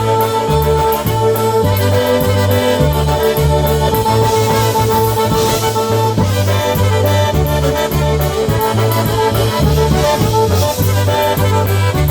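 Live polka band playing an instrumental passage, with a bass line stepping between two notes under a steady cymbal beat.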